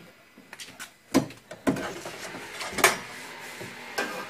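A few sharp knocks and clicks of a steel paintless-dent-repair door hook against the inside of a Volkswagen Beetle's door panel. The loudest knock comes about a second in and another a little under two seconds later.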